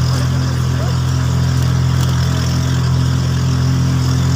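A motor running steadily at one speed, a constant low drone with no change in pitch.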